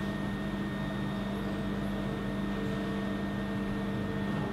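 Steady hum of factory machinery: several held tones over an even low rumble.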